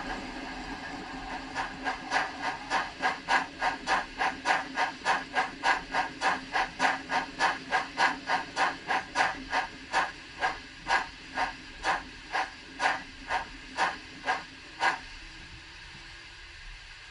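Model Rapido Stirling Single steam locomotive chuffing in even exhaust beats. The beats space out and stop about 15 seconds in as the locomotive comes to a stand, leaving a faint steady hiss.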